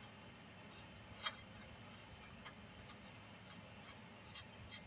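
Light metallic clicks from a nut being spun by hand onto a strut mounting bolt: scattered ticks, with two sharper clicks about a second in and near the end, over a steady high-pitched hum.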